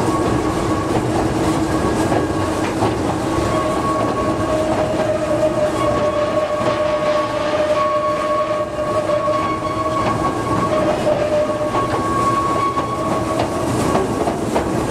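Narrow-gauge light railway train hauled by a Simplex diesel locomotive, running steadily, heard from an open carriage. The wheels clatter over the rail joints under a steady whine that comes and goes.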